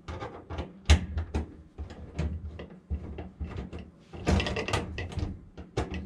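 Screwdriver clicking and scraping against the furnace's sheet-metal panel as the two screws holding a Coleman furnace's combustion air pressure switch are backed out: irregular taps and clicks, a sharp click about a second in, and a longer rattling stretch a little after four seconds.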